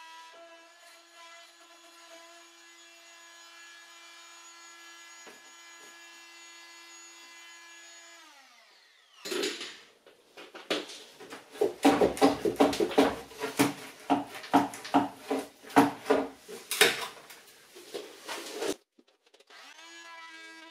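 Corded handheld power tool running at a steady high pitch as it cuts through a kitchen cabinet's chipboard base panel, winding down about eight seconds in. Then comes about ten seconds of loud, rough, irregular strokes and knocks on the wood. The tool spins back up near the end.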